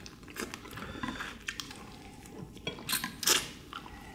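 Close eating sounds of soy-marinated crab and shrimp: wet chewing and biting with scattered small clicks, one louder wet noise about three seconds in.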